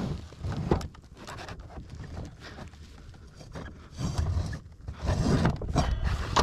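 Irregular scraping, rubbing and knocking as a freshly cut piece is pushed and worked into place to make it fit, the scraping heaviest in the second half.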